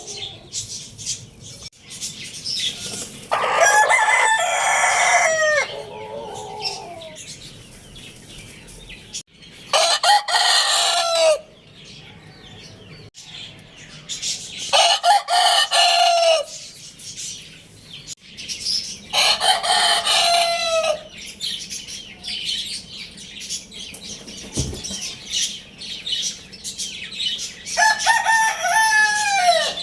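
Roosters crowing, five separate crows of about two seconds each, every one ending on a falling note, with chirping and clucking in between.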